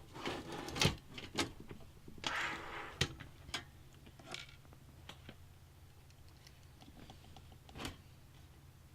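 Computer parts being handled during a PC build: scattered clicks and taps, with two short scraping, rustling stretches in the first three seconds, over a low steady hum.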